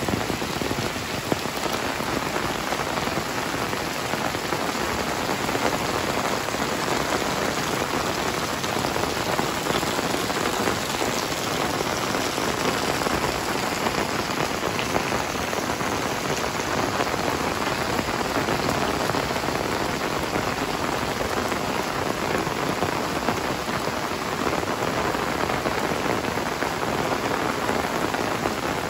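Heavy rain falling steadily on tiled roofs and paved ground: an even, dense hiss that keeps up without let-up.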